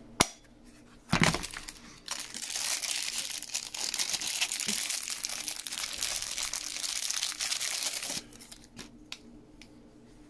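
A sharp click and a thump in the first second or so, then about six seconds of thin plastic crinkling as a handheld radio's antenna is pulled out of its clear plastic bag.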